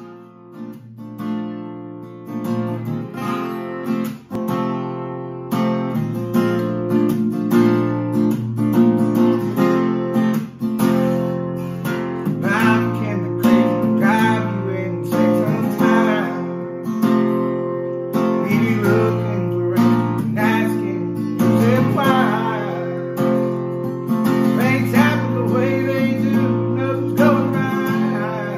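Acoustic guitar strummed in a steady rhythm, its chords ringing. It swells in loudness over the first few seconds.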